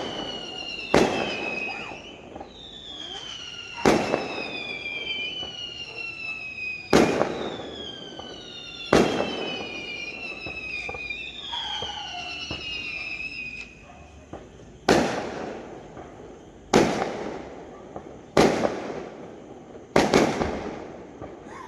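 Fireworks going off: sharp bangs every one to three seconds, with several falling whistles between the bangs that die out about two-thirds of the way through.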